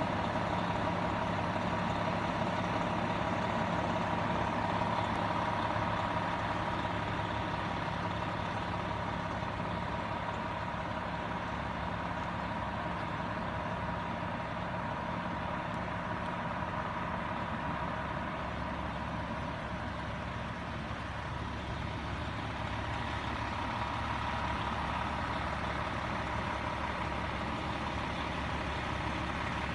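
Fire vehicles idling: a steady engine drone from a fire truck and a fire department Ford Explorer SUV, with a steady high whine over it.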